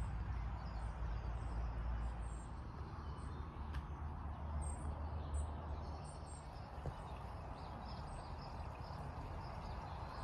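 Garden ambience: small birds chirping now and then over a steady low rumble.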